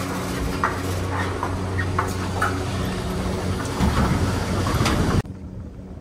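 Gondola lift station machinery running: a steady hum with clicks and rattles, growing louder about four seconds in. It cuts off suddenly about five seconds in, leaving a quieter steady background.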